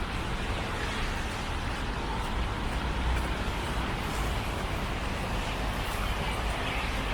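Steady city street noise: an even hiss of road traffic over a low rumble, with no distinct events.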